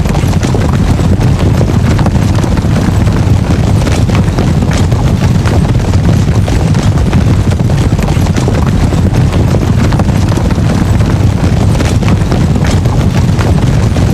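Dense, continuous rumble of many horses galloping together, a massed cavalry charge, with scattered sharp hoof clatters over a deep steady drumming.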